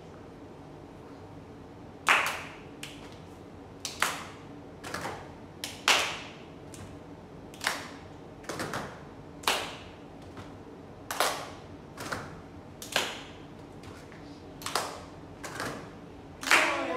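A group of children and their teacher clapping hands in unison in a rhythmic body-percussion pattern: sharp claps, single or in quick groups of two or three, about a second apart.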